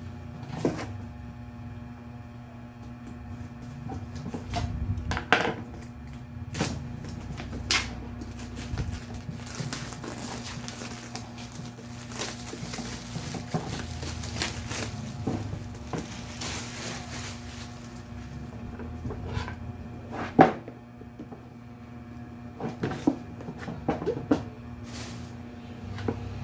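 Cardboard box and packaging being handled: scattered knocks and clicks, with a longer stretch of rustling in the middle.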